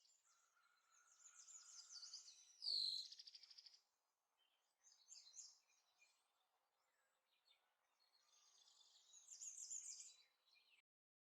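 Faint birdsong: several birds chirping and whistling in quick, overlapping calls, in three spells. It cuts off suddenly near the end.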